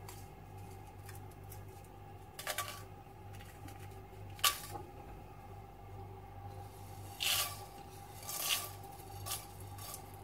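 Whole dry spices, dried red chillies and seeds, dropped by hand into an empty non-stick frying pan, landing in about five short bursts of light ticks and rattles for dry roasting. A low steady hum runs underneath.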